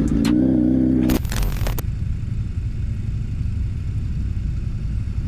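Motorcycle engine running under way with a steady hum that rises slightly. About a second in it breaks off into a brief burst of hiss, and then comes a low steady rumble of a motorcycle idling in traffic.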